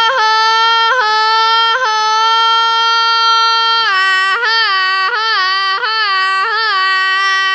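A boy's unaccompanied voice singing a llanero cattle-herding call (canto de cabrestero). He holds one long high note broken by quick yodel-like flips, then about four seconds in drops a little lower and runs a string of rapid warbling breaks while still sustaining the note.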